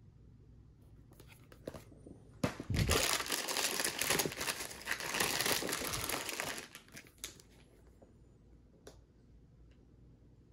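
Plastic packing material crinkling loudly as hands dig into a cardboard box and lift out a plastic-wrapped paperback. It begins about two and a half seconds in and lasts about four seconds, with lighter rustles and clicks before and after.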